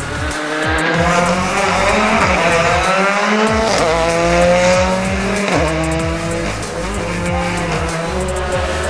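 Ford Fiesta R5 rally car's turbocharged 1.6-litre four-cylinder engine under hard acceleration. Its pitch climbs and drops back at each gear change, several times in a row.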